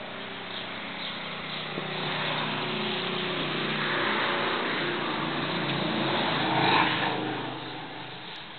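A motor vehicle going by: engine noise grows over several seconds, is loudest about seven seconds in, then fades.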